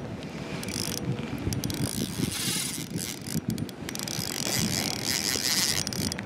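Fishing reel being cranked, a ratcheting mechanical whir, with rain-jacket fabric rustling against the camera.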